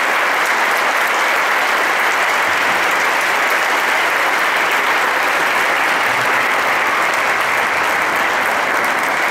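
Large audience applauding, a loud, steady wall of clapping.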